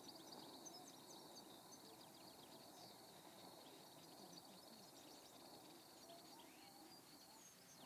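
Near silence: faint background hiss with a few faint, distant bird chirps.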